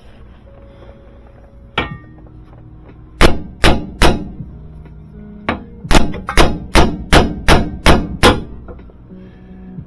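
Hammer striking the steel front suspension parts of a Suzuki Carry kei truck, metal on metal, to knock them loose during disassembly. One blow comes about two seconds in, then a quick three, then a steady run of about nine ringing blows.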